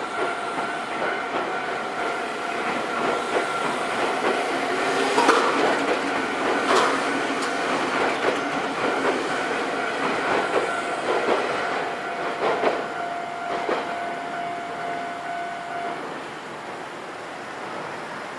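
Nankai Electric Railway train passing over a level crossing, its wheels clattering over the rail joints from about five seconds in to about fourteen, while the crossing's warning bell rings steadily; the bell stops near the end.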